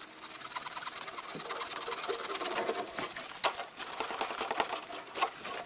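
Conifer branches rustling and crackling as they are pulled and cut with hand pruning shears, with a few sharper snips about three and a half, four and a half and five seconds in.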